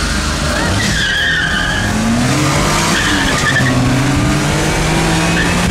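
Mini trucks accelerating flat out from a standstill. The tyres chirp briefly about a second in, then a small engine revs up through the gears, its pitch climbing, dropping at a shift near the three-second mark and climbing again.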